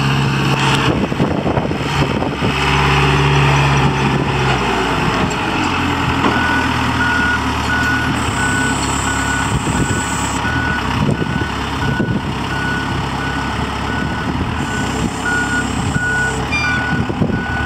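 Gehl RS6 telehandler's diesel engine running as the machine drives, louder in the first few seconds. From about six seconds in, its backup alarm beeps steadily at one pitch, about one and a half beeps a second, as it reverses.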